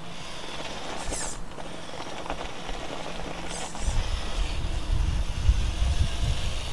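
1/8-scale Mad Torque RC rock crawler driving on concrete, its drivetrain and tyres getting louder from about four seconds in, with a low rumble, as it comes close.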